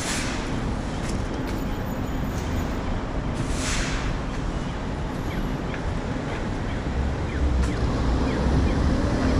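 City street traffic: a steady hum of cars going by, with a brief hiss a few seconds in and a low engine rumble building near the end.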